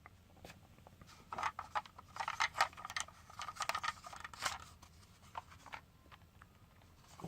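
Handling noise: a rapid run of small clicks and scrapes, thickest between about one and four and a half seconds in, then a few scattered clicks.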